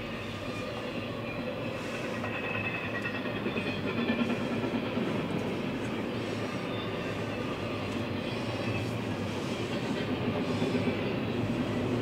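Freight cars of a CSX intermodal train rolling past, heard from inside a car: a steady rolling noise of wheels on rail that swells a little partway through and again near the end.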